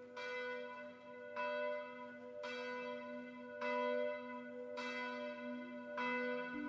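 Church bell tolling, six strikes a little over a second apart, each ringing on into the next.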